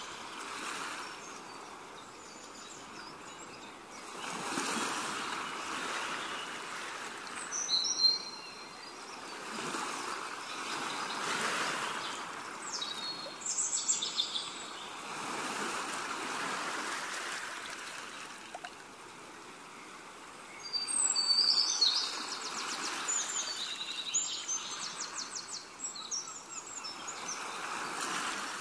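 Birds chirping, with a run of rapid high trilling about three-quarters of the way through, over a rushing noise that swells and fades every few seconds.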